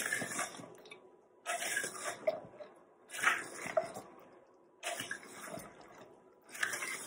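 Shredded cucumber, carrot and onion being mixed into curd by hand in a stainless steel bowl: wet squelching and rustling in five strokes about a second and a half apart.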